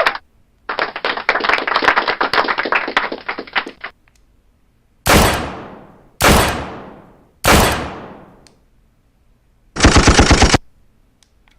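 Canned sound effects played back from a TT-K8 Pro live-streaming sound card. A dense crackling clatter lasts about three seconds. Then come three single gunshot blasts, each with a long fading tail, and a short machine-gun burst near the end.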